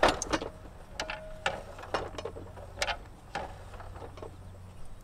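Bosch GCM12SD miter saw's axial-glide arm being slid in and out by hand, its knuckle joints giving a string of separate clicks and knocks, with a brief squeak about a second in. The knuckle's set screws have just been tightened to give the glide some resistance.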